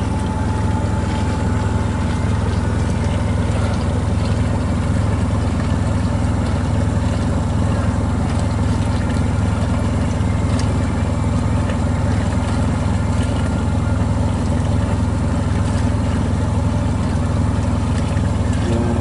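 Boat's engine running steadily under way, a constant low drone, with the hiss of water along the hull and wake.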